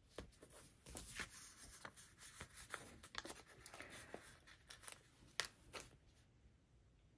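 Faint rustling and small ticks of paper and sticker sheets being handled, with stickers peeled off the sheet and pressed onto a planner page.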